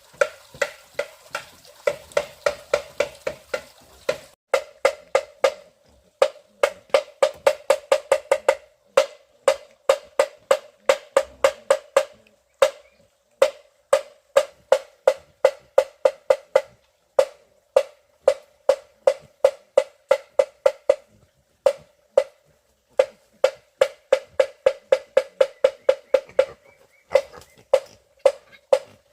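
Rapid, even knocks of something hard striking wood, about four to five a second in runs broken by short pauses, each knock with the same hollow ring.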